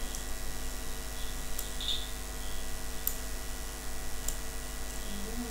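Computer mouse clicking a few times, about four sharp clicks spread over the seconds, over a steady electrical hum and hiss.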